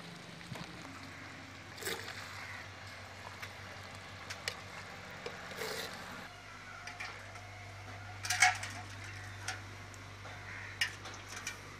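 Slotted metal spoon scraping and knocking against a clay pot while a thick mango curry is stirred, with scattered sharp clinks; the loudest knock comes a little past eight seconds in. A faint steady low hum lies under it.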